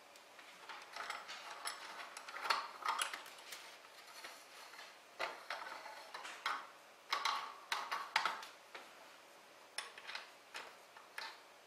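Filament spool and metal spool-holder rod being handled: irregular clicks, taps and light knocks as the spool is slid onto the rod and the rod is set back into the printer's holder arms.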